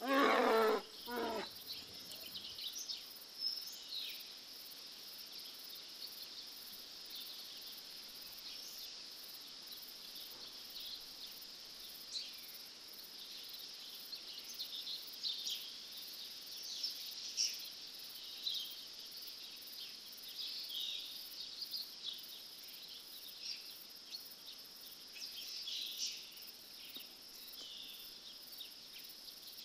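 Countryside ambience: a steady high insect trill, like crickets, with scattered bird chirps and calls over it. A brief louder sound opens it in the first second or so.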